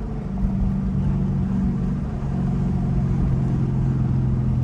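Straight-piped 2021 Dodge Durango R/T's 5.7-litre HEMI V8 running while cruising, heard from inside the cabin as a steady low exhaust note. The note steps lower about two seconds in.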